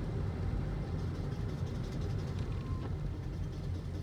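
Steady road rumble inside the cabin of a 2012 Toyota Aqua hybrid running at about 40 km/h, with faint rapid clicking from about a second in. The clicking is typical of the rattle that this car makes when coasting off the accelerator and that stops when the brake is pressed.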